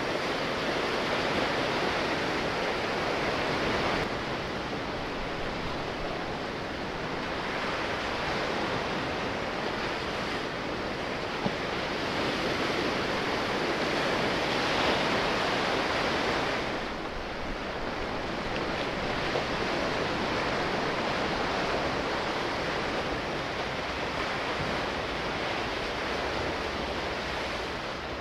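Sea waves washing in a steady rush that swells and eases every few seconds.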